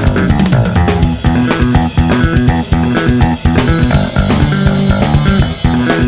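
Instrumental rock music: electric bass playing a repeating, busy riff over a drum kit groove.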